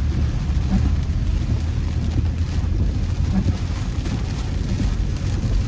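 A car driving through heavy rain: a steady low road and engine rumble, with rain hissing on the vehicle.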